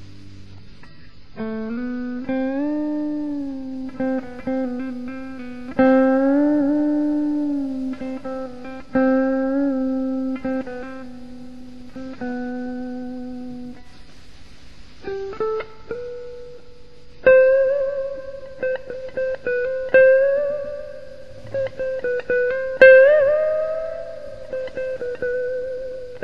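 Clean electric guitar through a small AXL G20R solid-state amp, playing single-note melodic phrases with string bends and vibrato, the held notes ringing out and fading. The lines sit lower in the first half and move higher in the second.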